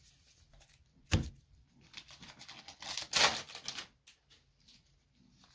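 Trading-card booster pack and cards being handled: a sharp thump about a second in, then a few seconds of crinkling and rustling of wrapper and cards, loudest about three seconds in.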